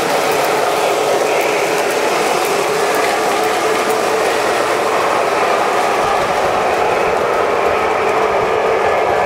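Several O-gauge electric toy trains running at once on three-rail track: a steady mechanical rattle and whir of motors, gears and metal wheels, with light ticking as wheels pass rail joints.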